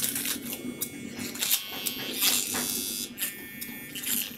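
Energized laminated-core transformer buzzing steadily, with several short clinks as steel stampings are pulled one by one out of the gap between its limbs, the magnetic shunt between primary and secondary being removed.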